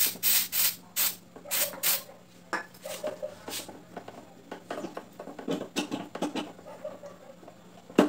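Seized Mondial electric fan motor being worked by hand: a series of short scraping rubs and clicks as the stuck rotor shaft and plastic front housing are twisted back and forth, the loudest in the first two seconds and another cluster near the end. The shaft is seized in its front bushing and is being worked loose.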